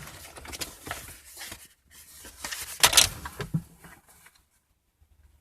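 Handling noise of loose car parts being rummaged through: scattered rustles and small clinks, with a louder clatter about three seconds in.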